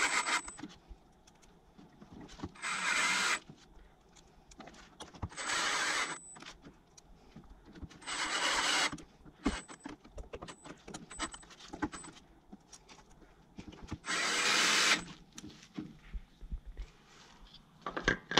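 Cordless drill driving the mounting screws of a GM ignition control module and coil pack assembly, in about five short runs of roughly a second each.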